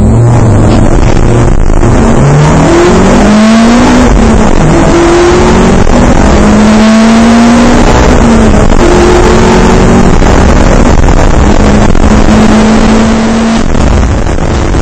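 Onboard sound of a race car's engine at full throttle. The engine note climbs in pitch over the first few seconds, then holds near steady at high revs with a couple of brief dips, over a constant rush of noise.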